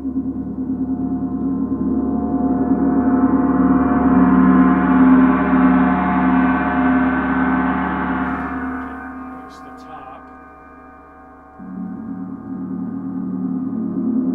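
Paiste gong rolled with two soft mallets high up near its suspension cord, swelling to a full ringing shimmer and then damped by hand; played there, the cord holds the top back so it opens up less. About eleven and a half seconds in, a new roll starts low on the gong and builds again.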